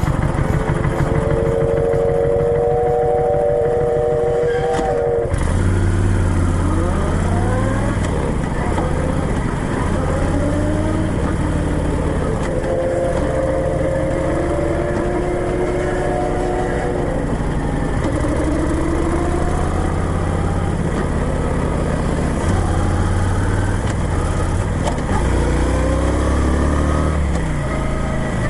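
Motorcycle engine on the move, its revs rising and falling again and again over a steady low drone.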